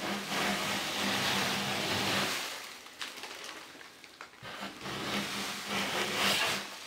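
A popcorn ceiling scraper's blade scraping soaked popcorn texture off a drywall ceiling, in two long strokes, the second near the end.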